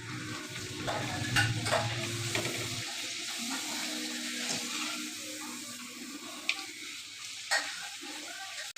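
Hot oil sizzling and crackling as sesame papad fries in a kadhai, with scattered sharp clicks and taps. A low steady hum sits under it for the first few seconds.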